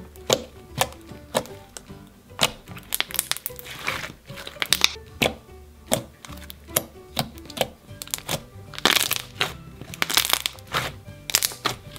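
Thick glittery pink slime being kneaded, squeezed and stretched by hand, giving off irregular wet clicks, pops and crackles, over quiet background music.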